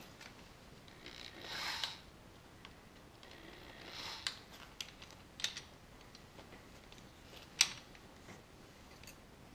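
A reciprocating saw being handled, with short rustles and scattered light clicks, the sharpest click near the end.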